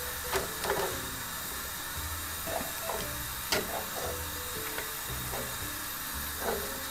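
Metal tongs knocking and clinking against a metal cooking pot as lamb shanks are turned in hot liquid: scattered sharp clinks, a few with a brief ring, over a steady low hiss.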